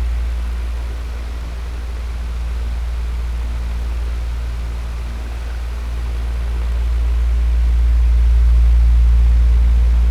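Electric fan running steadily: a deep hum under an even airy hiss, its loudness slowly swelling and easing over several seconds.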